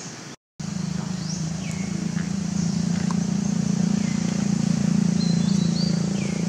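A steady low hum, with scattered short bird chirps over it. It starts after a brief dropout near the start.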